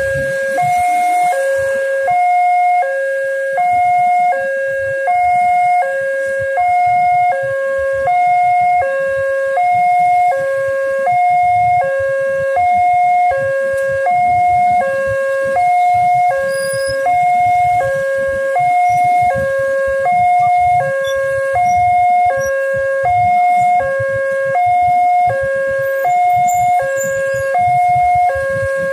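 Railway level-crossing warning alarm sounding from the crossing's loudspeaker: a two-tone electronic ding-dong, a higher and a lower note alternating evenly, each held for under a second. It signals an approaching train while the barriers are down.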